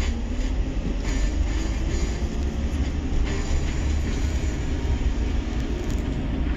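Mercedes-Benz Sprinter minibus under way, heard from inside the passenger compartment: a steady low rumble of engine and road noise.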